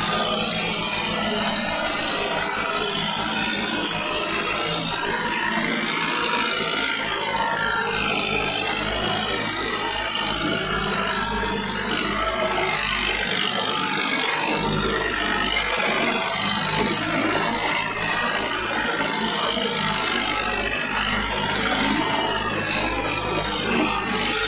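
Farm tractor's diesel engine running steadily as the tractor drives along, heard from the driver's seat.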